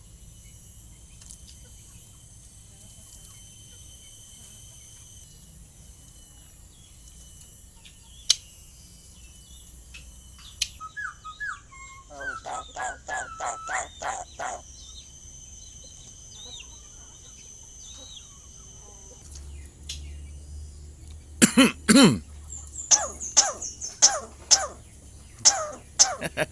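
Pet starling calling: a quick run of repeated pitched calls about twelve seconds in, then a series of loud, sharp calls over the last five seconds, the loudest sounds here. A steady high-pitched whine runs faintly behind it for much of the time.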